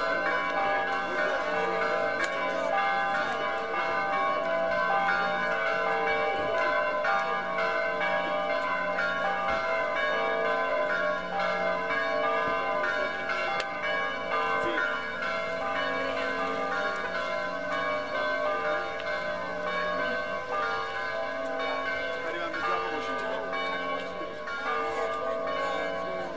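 Church bells pealing continuously, many ringing tones overlapping, with a murmur of people talking underneath.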